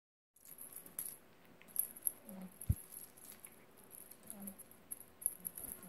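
Feather wand cat toy jingling and rattling in short bursts as it is flicked about for a kitten, with one soft thump about two and a half seconds in.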